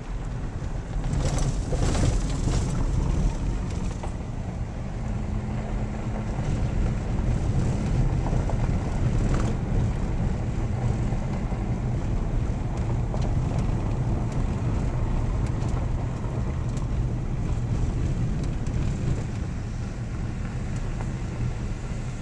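Vehicle cabin noise while driving on a gravel road: a steady low engine and tyre rumble, with a brief hissy rush of noise about one to three seconds in.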